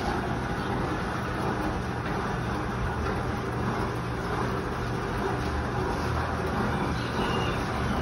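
Large drum fan running steadily: an even rush of moving air over a low hum.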